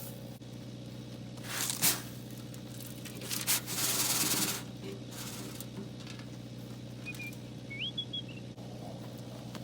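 Scraping and rustling from yard work, in short bursts: a brief one about two seconds in and a longer, louder one about three and a half to four and a half seconds in. A short rising whistle comes near the end.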